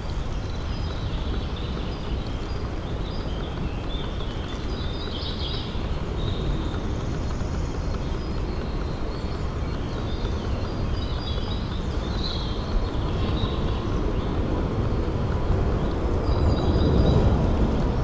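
Woodland ambience: birds chirping intermittently over a steady low rumble of wind-like noise, which grows louder near the end.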